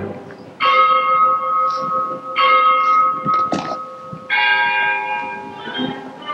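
A church bell tolling three slow strikes about two seconds apart, each left ringing on; a death knell for an execution.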